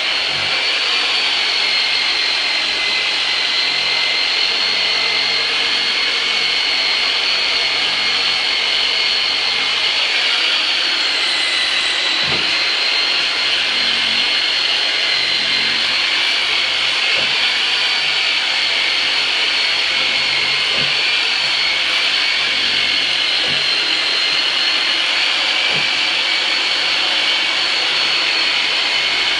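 Turbonator, a motorized chiropractic massage tool, running continuously with a steady high whine, its pitch wavering and dipping slightly about twelve seconds in. A few faint low thumps.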